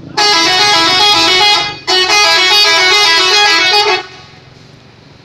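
Indonesian bus 'telolet' musical horn playing its multi-note tune in two long, loud blasts, the notes stepping up and down. The first blast lasts about a second and a half; after a brief break the second runs about two seconds.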